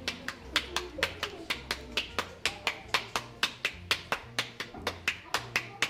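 Background music with a fast, even percussive beat of about five strokes a second over a low bass line.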